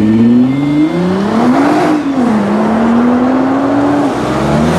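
Nissan GT-R's twin-turbo V6 accelerating hard, its note climbing, dropping back at a gear change about two seconds in, then holding steady in the next gear. The engine note changes again near the end.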